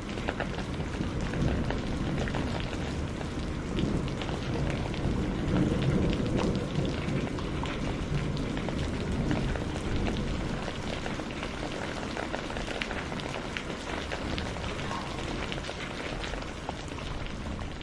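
Steady heavy rain with a low rolling thunder rumble that swells a few seconds in and slowly eases away.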